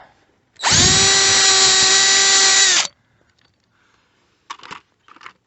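Power drill running at a steady pitch for about two seconds as it drills out a metal rivet, winding down as it stops. A few light clicks follow near the end.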